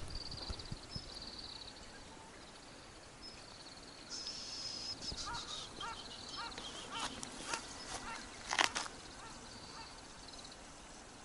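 Birds calling with short high trills and chirps over a faint outdoor background, with a few brief rustling knocks late on, the loudest near the end.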